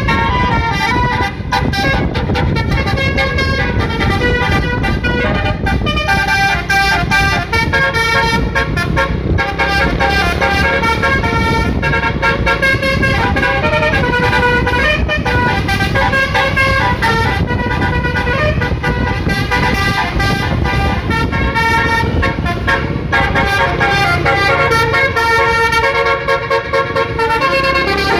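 Indonesian 'telolet' multi-tone bus horn playing a melody, its several horn notes stepping from pitch to pitch without a break, over a low rumble.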